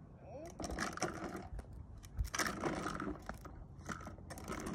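Hard plastic wheels of a toddler's push-along ride-on toy car rolling and scraping over concrete, in uneven spells of rattle with small sharp clicks.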